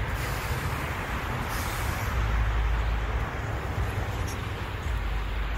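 Steady low rumble of vehicle engines running, with wind buffeting the microphone and swelling about two seconds in.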